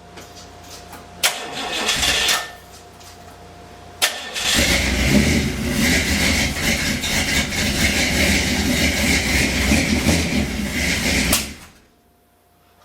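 Old Chevy pickup truck engine being cranked: a brief start attempt of about a second, then a longer crank-and-run of about seven seconds that cuts off suddenly.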